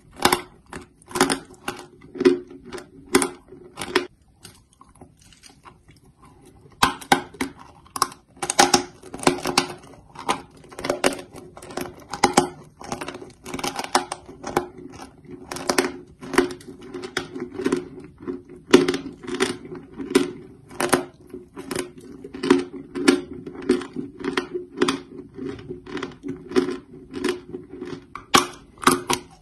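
Close-up chewing of dry chalk: crisp, gritty crunches, at first about one a second, then after a short lull a quicker, denser run of crunches.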